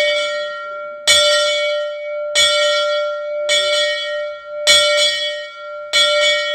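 Steam locomotive's boiler-top bell swinging and ringing: six clangs about one every 1.2 seconds, the last one doubled, each note ringing on into the next.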